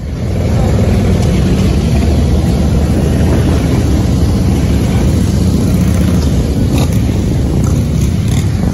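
Several police Harley-Davidson touring motorcycles with V-twin engines rumbling steadily as they ride past slowly in a group.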